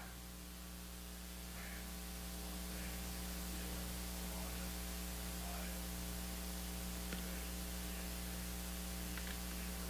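Steady electrical mains hum with a hiss over it, picked up by the recording's audio chain.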